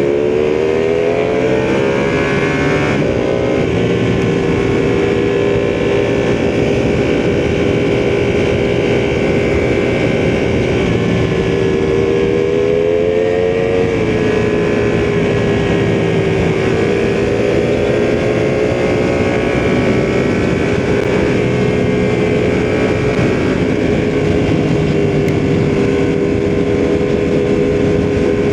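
Ducati sportbike engine from the rider's seat, climbing in revs over the first couple of seconds and then holding a steady cruise, with small rises and dips in engine speed along the way.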